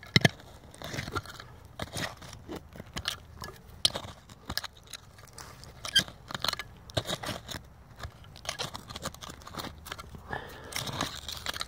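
Three-tined metal hand cultivator raking and scraping through gravelly soil and roots: irregular crunching scrapes, a stroke every half second or so.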